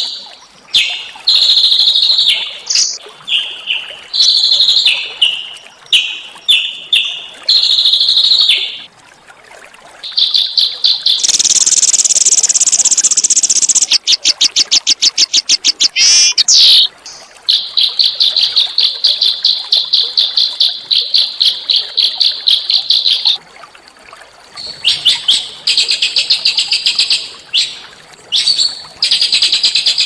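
Small songbird singing loud and close: a string of sharp, high chirps, then a buzzy rattle and a long, fast, even trill of about six seconds, with more quick chirps near the end.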